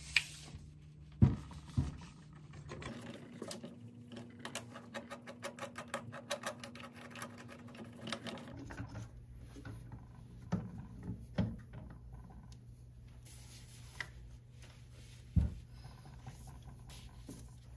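Handling noise while assembling a magnetic drill press: two sharp knocks, then several seconds of rapid light clicking as the feed handles are screwed into the hub, then scattered knocks and taps.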